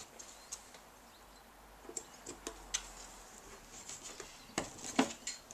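Small clicks and light scrapes of a metal paint tin and its lid being handled and wiped round the rim, with a sharper metal click about five seconds in.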